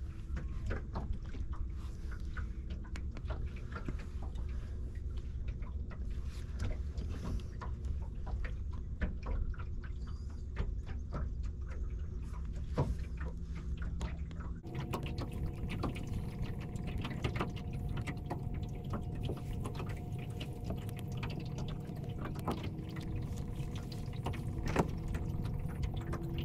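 Small boat under way at trolling speed: a motor running steadily while water splashes and slaps against the hull. The motor's tone changes abruptly about halfway through.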